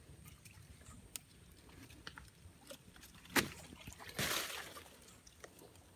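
A single sharp click about three and a half seconds in, followed by a brief splash of water at the pond's edge, over faint outdoor background.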